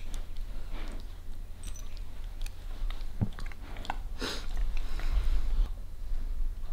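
Young Dobermann chewing and mouthing a plush toy: irregular soft rustles and small clicks, over a steady low hum.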